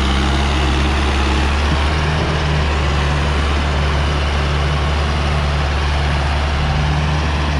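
Mahindra Arjun 555 DI Power+ tractor's diesel engine running steadily under heavy load, pulling a trolley heaped with sand.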